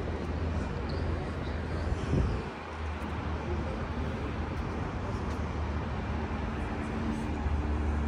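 Steady city traffic rumble, with a short low thump about two seconds in.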